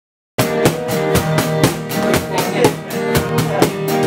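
A band's music starts abruptly: fiddle and acoustic guitar over a steady drum beat of about four strokes a second.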